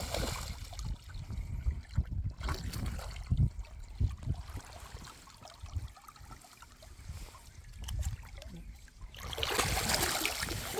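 River water running and trickling, with uneven low rumbles through it. About nine seconds in, the water noise grows louder and brighter.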